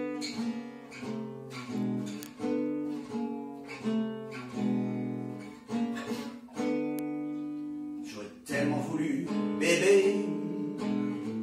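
Acoustic guitar playing a slow blues instrumental break between verses: chords struck one after another and left to ring, one held and fading for over a second about two-thirds of the way through.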